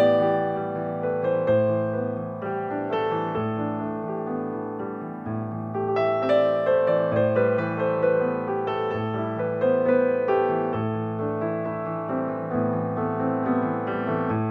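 Background piano music playing gently, with a steady succession of notes.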